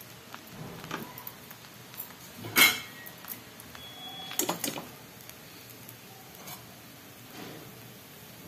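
Steel spatula and ladle scraping and clinking against a steel kadhai as cooked poha is stirred and scooped. The loudest clink comes about two and a half seconds in, with a couple more around four and a half seconds and fainter knocks later.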